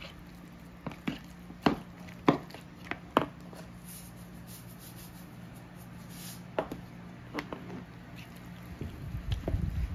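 A few sharp taps in the first three seconds, then plain breadcrumbs shaken from a canister into a bowl of raw ground meat with a soft hiss. Near the end come the wet squishing and rustling of a gloved hand working the raw meat.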